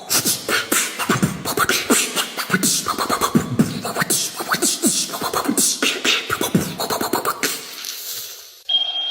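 Rapid percussive mouth sounds: a fast, dense run of clicks mixed with short sliding vocal squeaks, fading out about a second before the end, where a different sound with a steady high tone cuts in.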